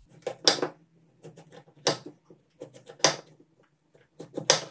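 Large kitchen knife cutting through a kabocha squash and knocking down onto a wooden cutting board: four sharp knocks at roughly even intervals, with softer clicks between them.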